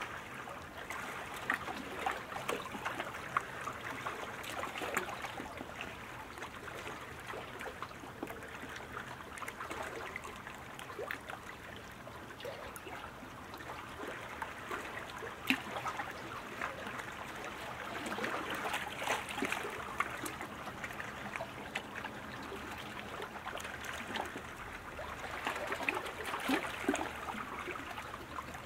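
Steady rushing, splashing water noise from kayak paddles and hulls on the course, dotted with short crackles. It swells about two-thirds of the way through and again near the end.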